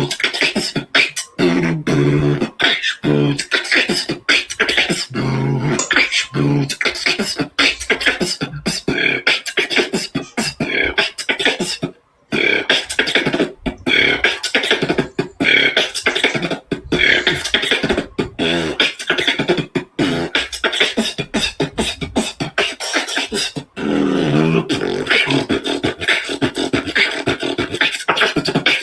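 Human beatboxing: a fast, continuous routine of mouth-made kicks, snares and clicks. Low hummed bass notes run under the beat in the first several seconds and again near the end, and the beat breaks off for a moment about twelve seconds in.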